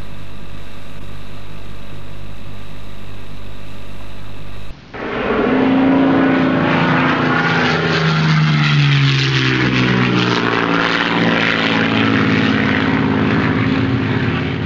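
A steady drone with fixed tones cuts off suddenly about five seconds in. A louder propeller aircraft then passes by, its engine pitch falling as it goes past.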